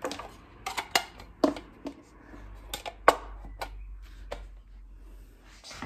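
Irregular small clicks and knocks, as of objects being handled, with a low hum from about two seconds in until near the end.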